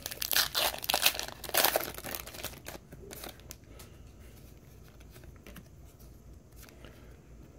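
Wrapper of a Panini Score football card pack crinkling and tearing in the hands. The crackling is loudest for the first two seconds, then thins to a few faint rustles and ticks.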